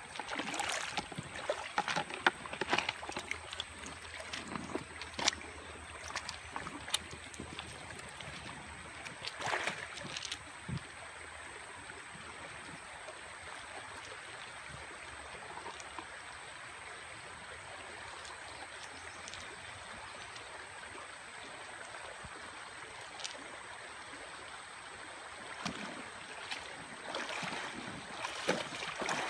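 Shallow stream water running steadily over rocks, with scattered knocks and splashes in the first ten seconds and again near the end as a cast net is handled in the water.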